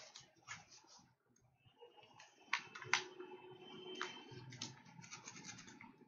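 Faint scratching with a few sharp clicks, about two and a half, three and four seconds in, as a line is hand-drawn onto a slide with a drawing input device.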